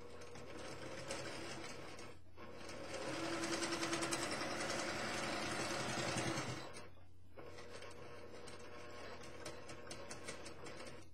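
Sewing machine stitching during free-motion quilting, running in spurts. It stops briefly about two seconds in and again about seven seconds in, with a faster, louder run in between.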